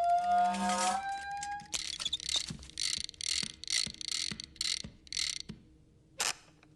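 Mechanical sound effect: a rising whine, then a run of ratcheting clacks about two a second, and a single clack near the end.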